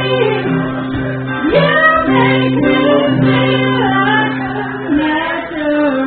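A woman singing a song with acoustic guitar accompaniment, her voice holding and sliding between notes over steady guitar chords.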